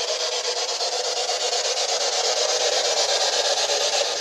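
Steady hiss of radio static, finely and evenly chopped, from a ghost-hunting spirit box sweeping through stations.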